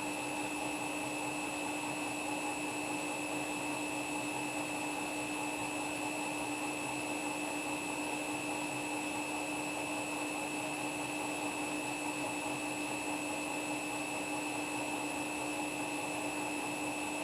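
Washing machine spinning at a steady high speed: a constant motor whine with several held tones over the rush of the drum, without knocks or thumps.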